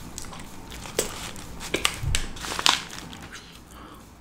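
Chewing a bite of chicken shawarma with the paper wrapper crinkling in the hands, a few sharper crackles standing out.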